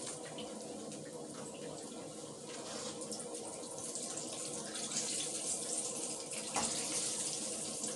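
Mustard-and-flour battered chicken wings frying in a pan of hot oil: a steady sizzle, with a single sharp click about six and a half seconds in.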